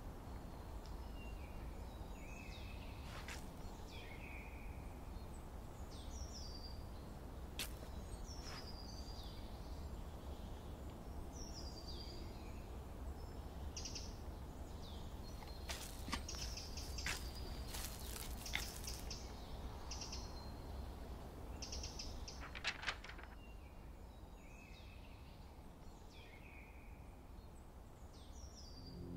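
Woodland ambience: small birds chirping and calling again and again over a low, steady rumble. A few sharp clicks come through, a cluster of them about halfway through and two more a few seconds later.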